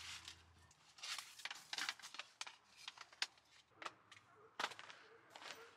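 Scattered light clicks and knocks of folding camping furniture being handled: a wooden folding shelf being set in place, then a black plastic folding frame being picked up and turned over.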